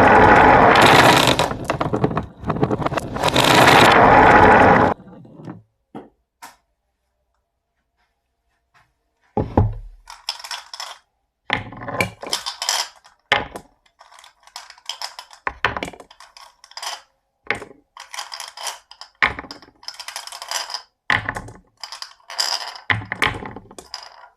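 Marbles rolling and clacking down a HABA wooden marble run: a dense continuous rattle for about five seconds, a few seconds of quiet, then a long string of separate knocks, clicks and short rattles as marbles drop and hit the track.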